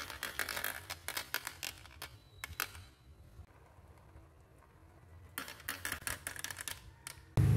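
Red marbles clicking and rattling as they roll through a clear plastic tube track and drop into a plastic toy dump truck's bed: a quick run of clicks, a quieter lull, then a second run of clicks. A loud low rumble cuts in suddenly right at the end.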